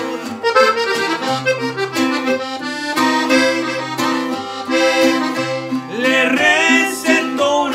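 Button accordion playing the melody of an instrumental break between verses, with a bajo sexto strumming chords and bass notes underneath.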